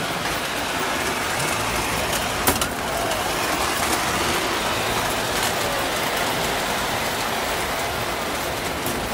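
Model train running along its track, a steady rolling rumble and hiss with faint squeals, and a sharp click about two and a half seconds in.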